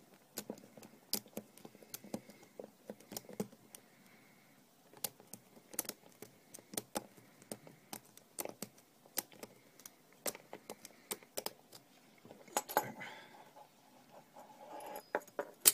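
Single-pin picking of an Asec 50mm padlock with a Goso hook pick and tension wrench: irregular small metallic clicks and scrapes as the pick works the pins in the keyway, with a louder clatter of metal near the end.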